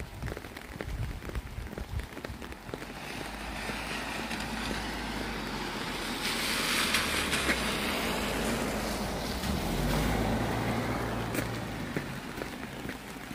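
A vehicle passing on a wet road: tyre hiss and a low engine rumble swell to a peak about seven seconds in, then fade away.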